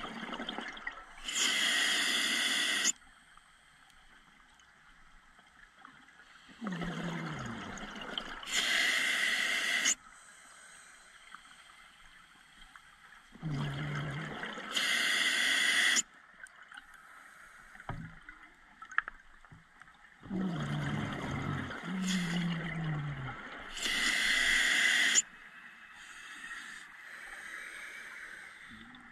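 A scuba diver breathing through a regulator underwater. There are four breaths about six to seven seconds apart, each a drawn inhalation with a low, falling tone from the regulator, followed by a loud rush of exhaled bubbles lasting one to two seconds.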